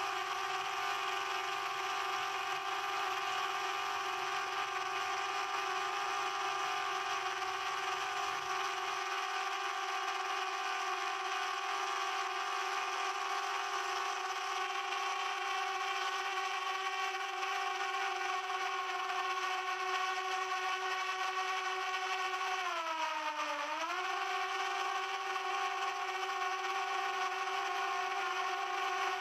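Quadcopter drone's propellers whining at a steady pitch. The pitch dips briefly and comes back up about three quarters of the way through as the motors slow and speed up again.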